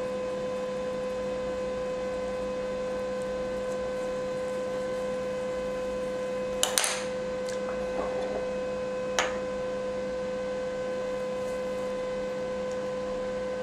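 Steady electrical hum from the recording, with a few brief rustles and a click in the middle.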